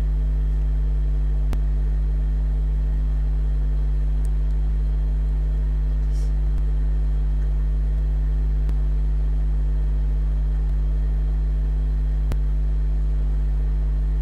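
Steady low electrical hum with a buzzy edge that does not change, with a couple of faint clicks.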